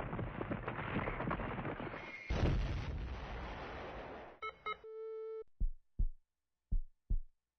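Logo-sting sound effects: a rumbling whoosh that swells into a hit about two seconds in and fades, two short electronic beeps and a held beep, then slow paired low thumps like a heartbeat.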